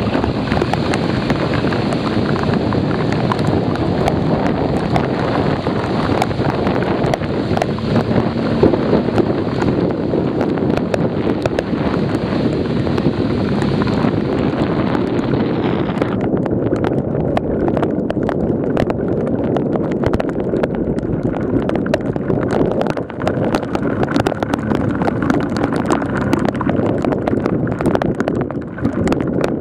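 Heavy rain pelting a motorcycle-mounted camera in a dense patter of drops, over a steady rush of wind and tyres running through standing water. About halfway through, the sound turns suddenly duller as its hiss drops away.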